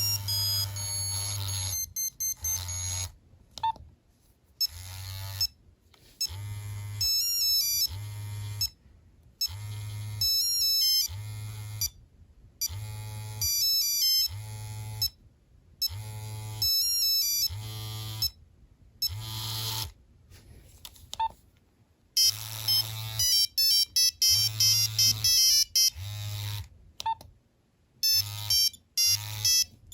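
Nokia 3390's built-in monophonic ringtones playing through the phone's small speaker: short beeping melodic phrases that repeat about every second and a half, with the vibrate motor buzzing in pulses along with them. A different, busier tune takes over about two-thirds of the way in.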